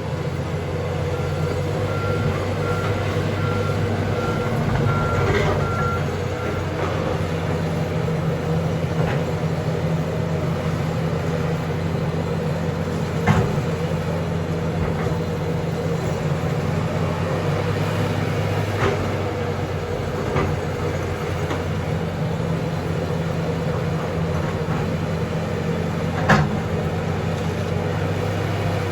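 John Deere backhoe's diesel engine running steadily. Its reversing alarm beeps about twice a second for roughly five seconds near the start, and a few sharp clanks come later.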